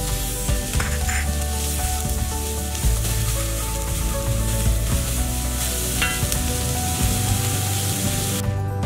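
Chopped onions sizzling in hot oil in a kadai as they are stirred with a wooden spatula, sautéed until translucent, with background music underneath. The sizzle cuts off suddenly shortly before the end, leaving only the music.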